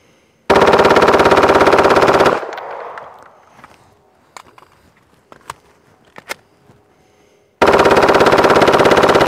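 Gen 3 Glock 17 9mm pistol converted to full auto with an auto sear, firing two long, very rapid bursts of about two seconds each, with echo after the first. The gun is being fired in sustained bursts for a meltdown test, its barrel and polymer frame running hot.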